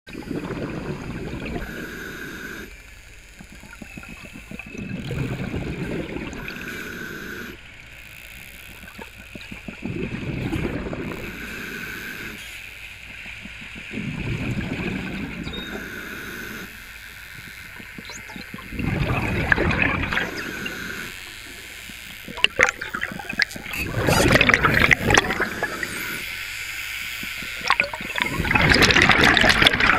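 Scuba diver breathing through a regulator underwater: exhaled bubbles gurgle out in a burst about every four to five seconds, with the hiss of each inhalation between, louder in the last ten seconds.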